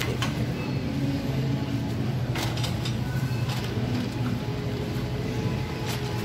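Wire shopping cart rolling across a store floor: a steady low rumble from the wheels, with a few short rattles from the basket, about two and a half seconds in, a second later, and near the end.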